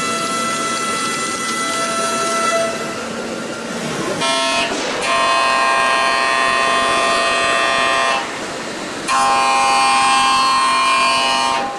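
Hwacheon L1 2500 machining center milling AL6061 aluminium: a steady, high cutting whine made of several held tones. The tones shift about four to five seconds in, as a ø63 face mill at 6,000 rpm gives way to a ø32 end mill at 8,000 rpm. The sound dips briefly about eight seconds in.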